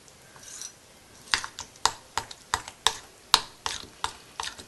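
A spoon stirring semolina (rava) idli batter in a bowl, clicking against the side about three times a second from a little over a second in.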